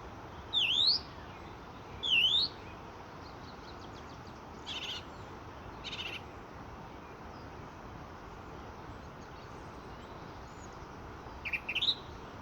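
Common starling singing: two loud sweeping whistles in the first few seconds, a couple of harsh scratchy notes midway, and a quick run of notes near the end, over a steady background hiss.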